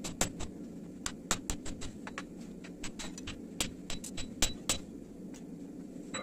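Hand hammer striking a red-hot steel bearing race on an anvil: a dozen or so irregular blows, some in quick runs of two or three, each with a short metallic ring. A steady low hum runs underneath.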